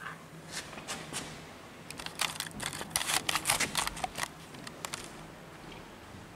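A rapid flurry of rustling clicks lasting about two seconds, starting about two seconds in, over a faint steady low hum.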